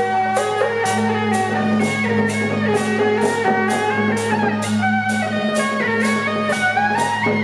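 Music: a melody moving over a steady low drone, with a regular beat of about two strikes a second.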